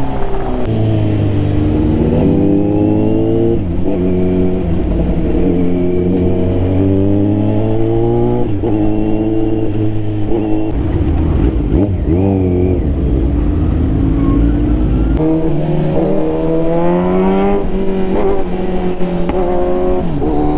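Kawasaki Z900's inline-four with a Mivv carbon full-system exhaust, accelerating hard: the engine note climbs in pitch through each gear and drops sharply at each upshift, over and over.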